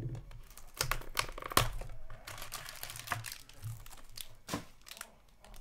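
Hands opening a trading-card box and its foil pack: a run of sharp crinkles and crackles of wrapper and cardboard, the loudest about a second and a half in.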